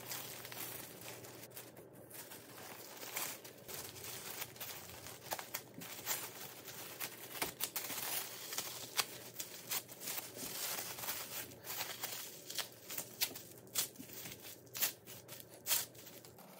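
Plastic cling wrap and disposable plastic gloves crinkling in many short, irregular crackles as hands fold the wrap tightly around a rice sandwich and press it.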